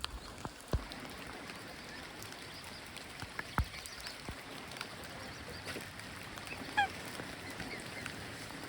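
Steady rain patter with scattered sharp raindrop hits, and one short call from a waterbird about seven seconds in.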